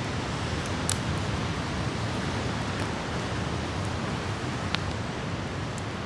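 Wood campfire crackling, with sharp pops about a second in and again late on, over the steady wash of ocean surf.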